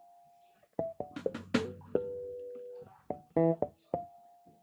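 Guitar played through stage monitors during a sound check: single plucked notes, each left to ring out, with one held note about two seconds in and a louder chord a little later.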